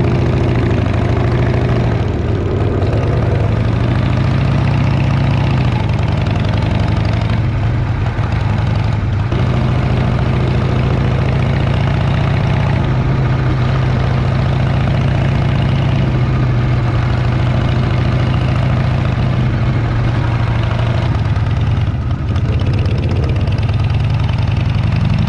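Motorcycle engine running steadily under way, heard from a camera on the moving bike, with wind and road noise over it on a dirt road.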